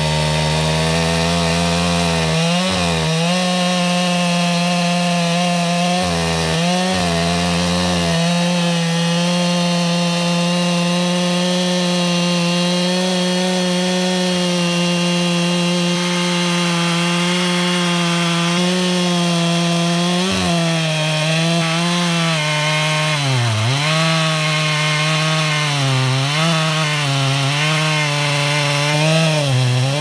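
Husqvarna 395 XP two-stroke chainsaw on an Alaskan sawmill with a 36-inch bar, running at full throttle as it rips lengthwise through a large sycamore log. Its steady pitch sags briefly a few times, then wavers up and down over the last several seconds as the load on the engine changes.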